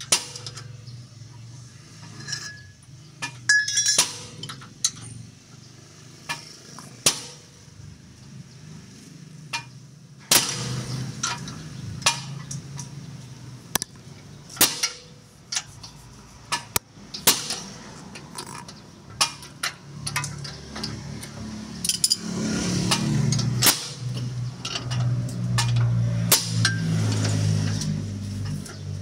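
Mechanic's metal hand tools clinking, tapping and knocking on steel suspension and steering parts, in sharp irregular strikes.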